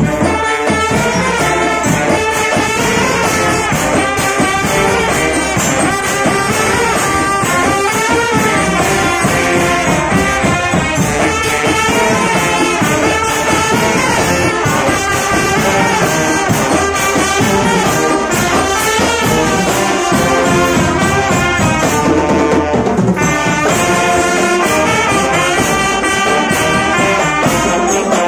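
Drum band playing at full volume: snare and bass drums keep a marching beat under trumpets and other brass carrying the tune. The band strikes up all at once.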